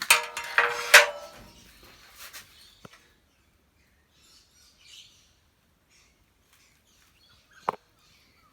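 A few sharp metallic knocks and a short scraping, ringing sound in the first second, then quiet with faint bird chirps and one sharp click near the end.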